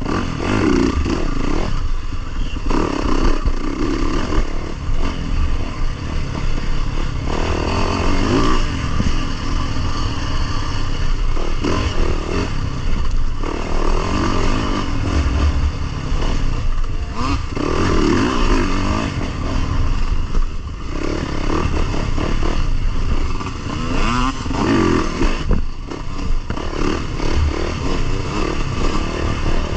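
Dirt bike engine running hard under the rider, the throttle opening and backing off every few seconds so the revs rise and fall, over a constant low rumble.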